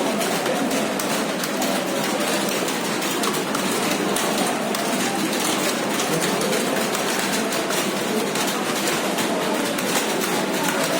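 Many computer keyboards being typed on at once in a room, a steady dense clatter of key clicks.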